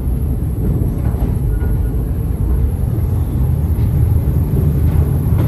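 Mail Rail's small electric passenger train running through a narrow tunnel on its narrow-gauge track, a steady low rumble.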